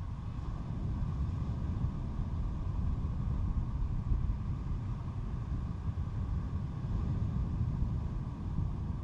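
Steady low rumble of wind buffeting the microphone outdoors, getting slightly louder about a second in.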